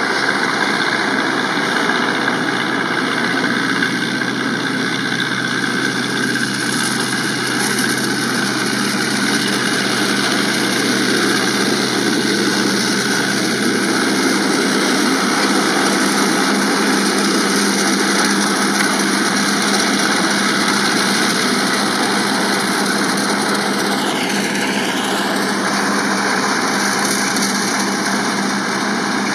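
Tractor engine running under load while driving a PTO-powered straw chopper-reaper that is cutting and chopping wheat stubble: a steady, dense mechanical din of engine and whirring chopper.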